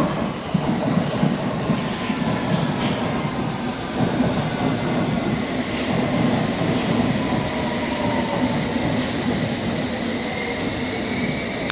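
Electric passenger train moving through the station, its motors giving a whine that slowly falls in pitch over the rumble of wheels on the rails, with a higher tone rising near the end.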